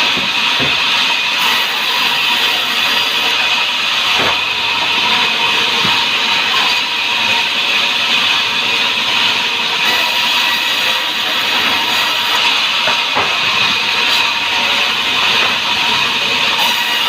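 Sawmill saw running steadily through a hardwood log, a loud continuous hiss with a few short knocks.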